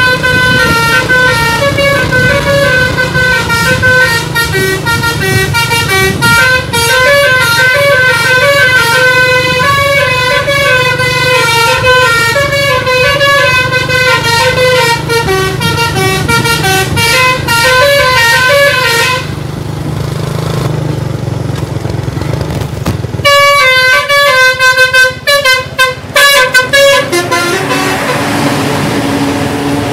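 A bus's telolet multi-tone basuri horn playing a long, fast run of stepping notes over a steady engine rumble. It breaks off about nineteen seconds in, plays another burst of notes a few seconds later, and near the end only the engine runs on.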